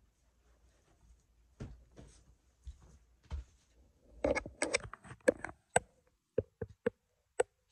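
Light knocks and clicks of things being handled: a few faint thumps at first, a quick cluster about four seconds in, then single sharp clicks roughly every half second.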